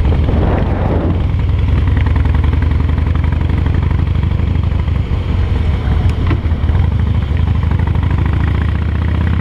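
Harley-Davidson V-twin engine running steadily at cruising speed, heard from the rider's seat.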